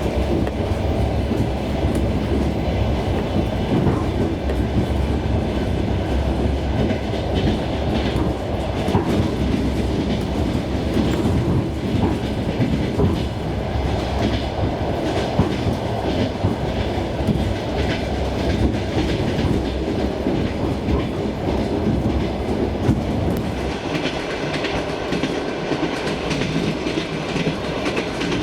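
Suburban electric train running, heard from inside a passenger car: a steady rumble and hiss with the wheels knocking over the rail joints in a clickety-clack. About 24 seconds in, the low rumble eases.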